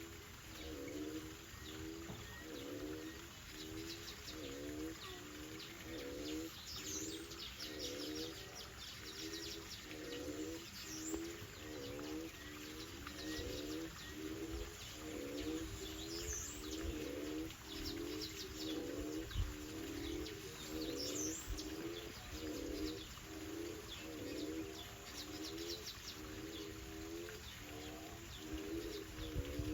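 Doves cooing over and over, a low phrase about once a second without pause, with fainter high chirps and trills of small birds above.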